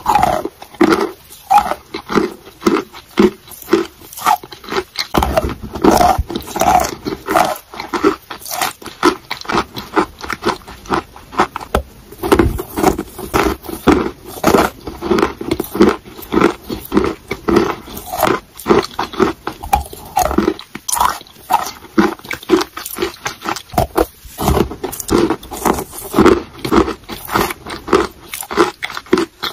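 Close-miked chewing of a mouthful of chalk: crunching and mouth sounds in a steady rhythm of about two chews a second.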